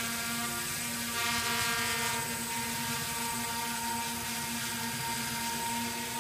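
Drone's electric motors and propellers whirring: a steady hum at a constant pitch.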